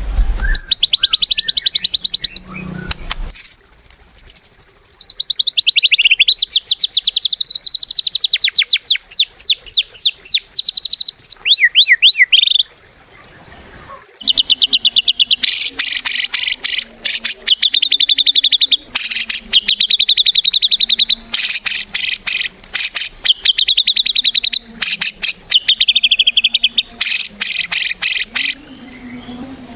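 White-rumped shama (murai batu) singing loudly in long runs of very rapid trilled notes, with a pause of about a second and a half near the middle.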